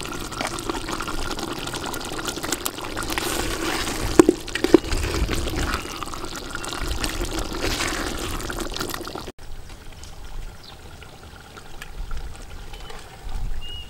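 Thick chicken and palm-fruit stew simmering in a metal pot as a metal spoon stirs through it, with two sharp clinks of the spoon against the pot a little past four seconds in. About nine seconds in, the sound drops suddenly to a quieter stretch.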